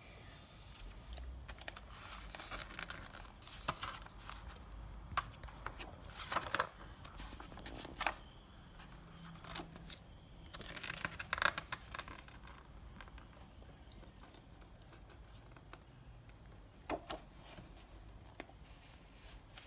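Paper pages of a booklet being handled and turned, rustling and crinkling in short bursts, with the loudest rustle about halfway through.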